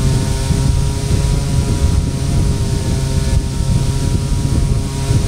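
Twin brushless electric motors and propellers of a small RC glider running at a steady whine in flight, with wind rushing over the onboard microphone.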